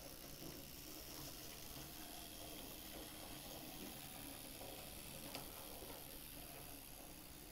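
OO gauge J72 model locomotive running slowly on the track: a faint steady motor hum and wheel noise, with one small click about five seconds in.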